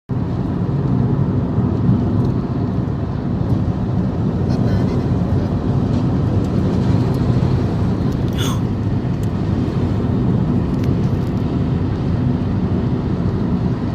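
Steady low rumble of a car driving, heard from inside the cabin: road, engine and wind noise. A short higher sound comes about eight and a half seconds in.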